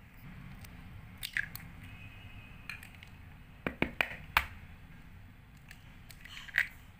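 An egg cracked and dropped into a bowl of flour and yeast mixture, heard as a few sharp clicks and taps with a soft wet squish. The loudest taps come together about four seconds in, with another near the end.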